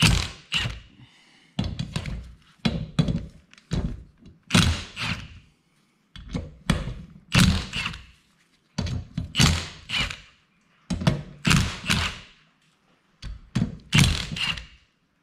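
Cordless impact wrench hammering in repeated short bursts with brief pauses between them. It is breaking loose the 14 mm bolts of a 168F small diesel engine's crankcase cover, one bolt after another.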